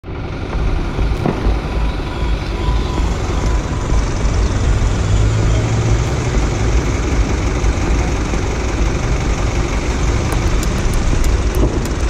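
Truck engine running steadily, a continuous low rumble.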